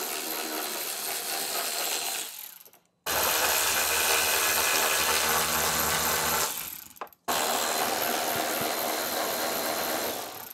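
Power ratchet on a long socket extension spinning out 10 mm bolts and nuts, in three runs of a few seconds that each wind down, with short pauses about three and seven seconds in.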